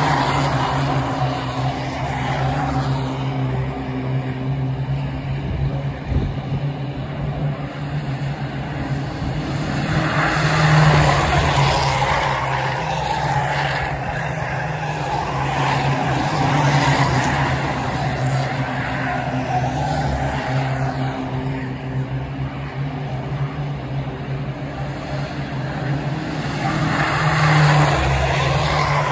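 A pack of Mini-based ministox stock cars racing around an oval track, their engines running hard. The sound swells as cars pass close, about a third of the way in and again near the end.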